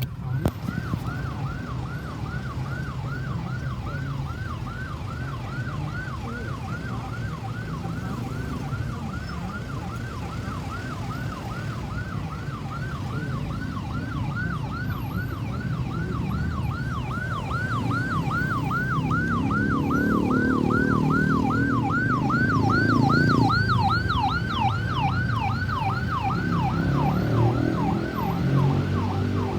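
Ambulance electronic siren on a fast yelp, a rapid rise-and-fall wail about three times a second, growing louder as it comes closer, over the low rumble of road traffic.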